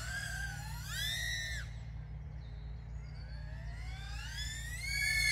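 2.5-inch cinewhoop FPV drone's brushless motors and ducted props whining, the pitch rising and falling with the throttle. There is a short climb and drop about a second in, then a long rising whine that peaks near the end before falling away.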